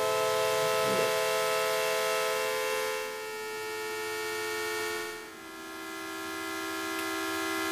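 Sequential Circuits Prophet-5 rev 2 analog synthesizer sounding a sustained note from oscillator one's pulse wave, with no pulse-width modulation and no added processing. The tone changes colour about three seconds in. Around five seconds it dips in level and settles at a lower pitch.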